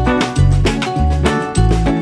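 Upbeat background music with a steady beat and a bouncing bass line.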